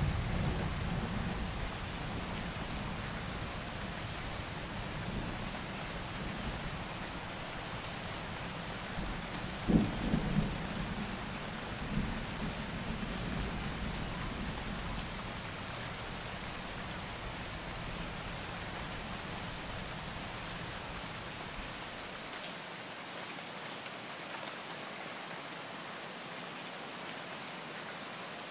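Steady rain with deep thunder rumbles, heaviest at the start, and a few short low thuds about ten and twelve seconds in. The deep rumble drops away about two-thirds of the way through, leaving the rain hiss.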